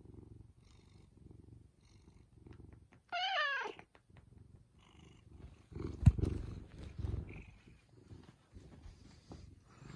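Domestic cat purring in a steady rhythm of pulses. About three seconds in comes a short, high, wavering call, and a sharp thump near the middle is the loudest moment.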